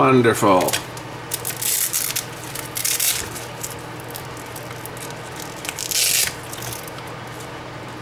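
Nylon hand-grip strap of a Sony CCD-TRV128 camcorder rubbing and scraping against the body as it is worked loose, in a few short rustling bursts over a low steady hum.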